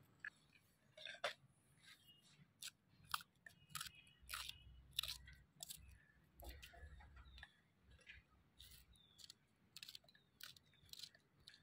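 Small kitchen knife slicing fresh green chillies held in the hand: a faint run of irregular crisp snaps and clicks.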